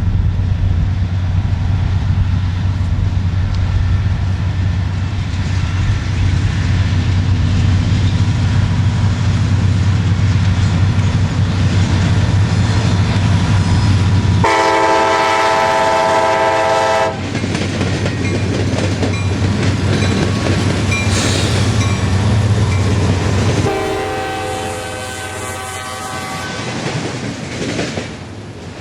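Diesel freight train passing with a heavy, steady engine rumble. About halfway through a locomotive air horn sounds a multi-note blast for a couple of seconds. A second, quieter horn blast follows near the end.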